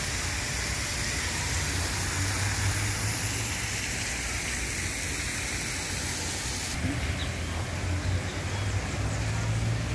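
Pond fountain spraying, a steady hiss of falling water; the hiss turns suddenly duller about seven seconds in. A low rumble runs underneath.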